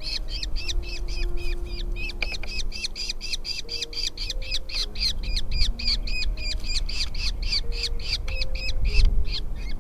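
Nestling birds begging in the nest: a fast, unbroken series of short, high, repeated calls, about five a second, that stops just before the end, the chicks' food-begging chorus at feeding time.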